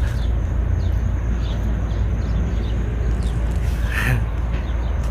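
Steady low outdoor background rumble, with one brief high-pitched squeak about four seconds in.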